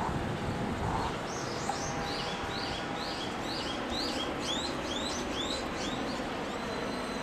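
A bird singing a quick run of short, high chirps, about three a second, starting about a second in and stopping near the end, over a steady background hiss.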